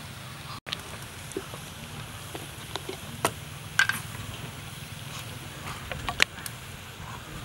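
Scattered light clicks and taps over a steady low background hum, with the sharpest clicks about halfway through and again near the end.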